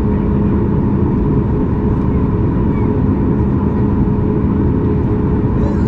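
Boeing 737 MAX 8's CFM LEAP-1B turbofan engines running at high thrust during takeoff, heard inside the cabin as a loud, steady rush of noise with a constant hum.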